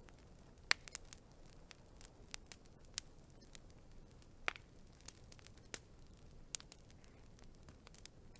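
Wood fire crackling: irregular sharp pops and snaps over a faint low hiss, with two louder pops, one near the start and one about halfway through.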